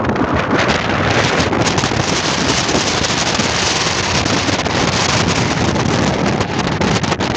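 Strong wind blowing and buffeting the microphone: a loud, steady rushing noise.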